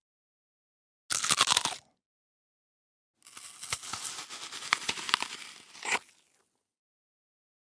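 Two crunch sound effects of a person biting and chewing crisp food, with dead silence between them: a short, sharp crunch about a second in, then a longer crackling crunch lasting about three seconds that ends in a louder crunch.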